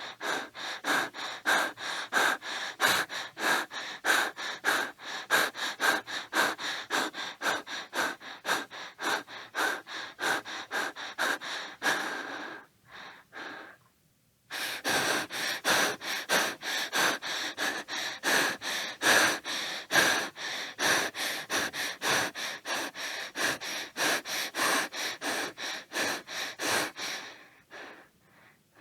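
A young boy breathing fast and hard, as after running: quick, rhythmic in-and-out breaths. They break off for about two seconds midway, then resume and trail away near the end.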